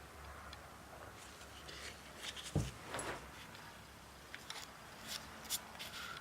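Scattered light clicks and knocks of metal handling at a milling machine, with one low thump about two and a half seconds in.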